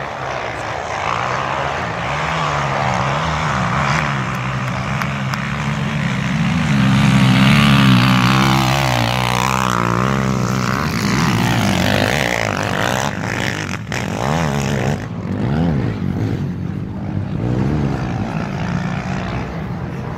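Racing quad ATV engine revving hard as it climbs a dirt hill-climb track. It grows louder to a peak about eight seconds in as the quad passes, and its pitch rises and falls with the throttle.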